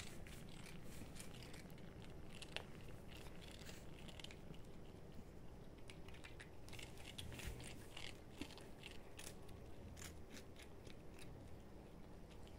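An adult cat and a kitten chewing dry biscuit: faint, irregular crisp crunches and clicks.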